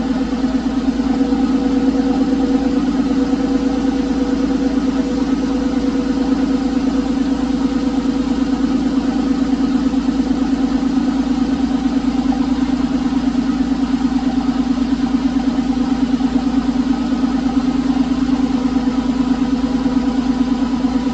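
Porsche 996 Carrera 4S's M96 3.6-litre flat-six idling steadily. The owner says all sounds well now and puts the earlier ticking down to a sticky hydraulic lifter.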